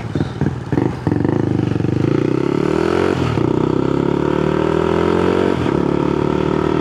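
Honda Grom's 125 cc single-cylinder engine pulling away and accelerating, its pitch rising through the gears, with two upshifts about three and five and a half seconds in.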